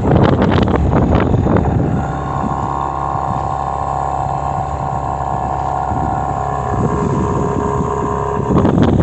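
Mariner 15 hp outboard motor running steadily, pushing the boat along. Wind buffets the microphone for the first two seconds and again near the end.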